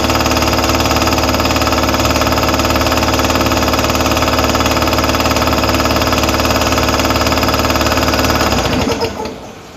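Toshiba TOSCON SP10 electric air compressor running steadily with a fast, even pulse, then shut off about nine seconds in and running down quickly.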